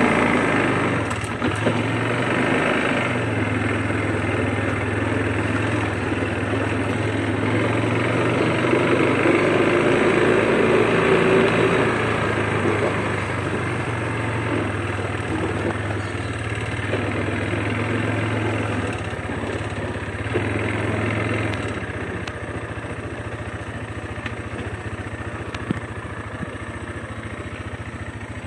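Quad bike (ATV) engine running steadily under way on a dirt trail, louder in the first part and easing off about 21 seconds in. A few short knocks come near the end.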